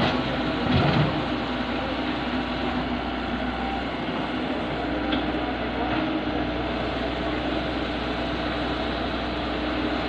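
Hydraulic excavator's diesel engine running steadily while it works its arm to load a dump truck, with a brief louder low swell about a second in.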